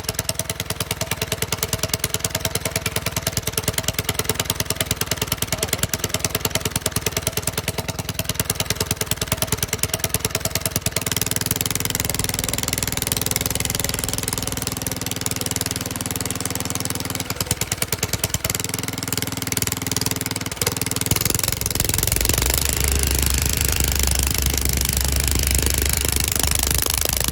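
Honda GX160 single-cylinder four-stroke engine on a plate tamper running with a steady putter, then sped up about eleven seconds in; some ten seconds later a heavy, deep pounding of the vibrating plate comes in. The engine is running again after its carburettor was cleaned.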